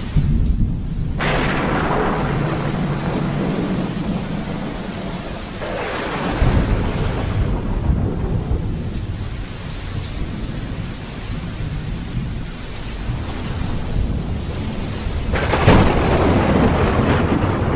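Thunderstorm with steady rain and rolling thunder. Three loud cracks, about a second in, about six seconds in and near the end, each followed by a long fading rumble.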